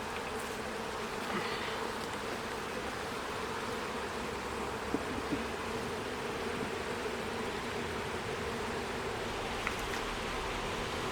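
Honey bees from an open hive buzzing in a steady hum, with a few faint clicks partway through.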